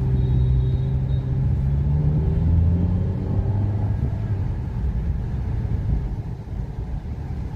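Inside the cabin of a moving Maruti Suzuki Ignis: the 1.2-litre four-cylinder petrol engine and road noise as a steady low rumble. The engine note rises over the first three seconds, then holds even.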